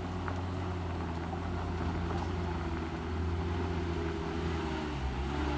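Mitsubishi Colt L300 pickup truck's engine running steadily under load as it climbs a rough gravel slope, its pitch dipping slightly near the end.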